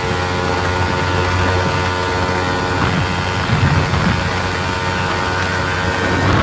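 Yamaha R15's single-cylinder engine running hard through an aftermarket silencer, held at about 135 km/h on a top-speed run. Heavy wind noise rushes over the microphone.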